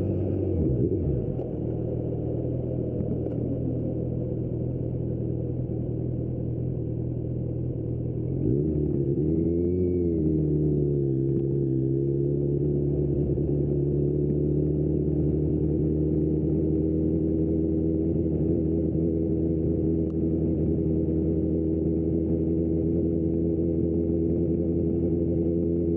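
2025 Kawasaki Z900 SE inline-four with an aftermarket Austin Racing exhaust. Just after the start the revs drop, and the engine runs steadily at low revs. About eight or nine seconds in the revs rise and waver, then it pulls on with the pitch climbing slowly.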